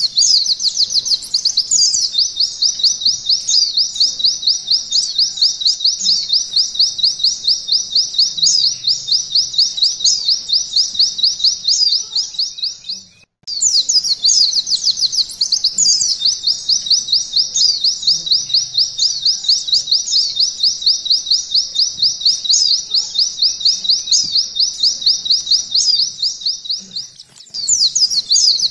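White-eye (pleci) singing a long canary-style 'nembak' song: a rapid, unbroken run of high repeated notes in long phrases, with a short pause about halfway through and another near the end.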